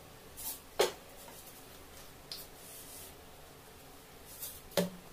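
Sparse kitchen handling noises as a plastic spice packet is handled over a steel mixing bowl of flour: a few short clicks and knocks, the sharpest about a second in and again near the end, with light rustling between.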